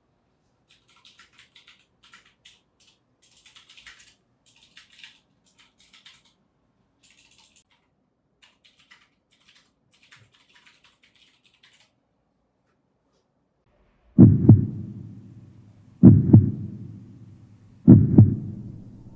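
Faint scattered clicks for the first dozen seconds, then a heartbeat sound effect: three loud, low lub-dub thumps about two seconds apart, building suspense.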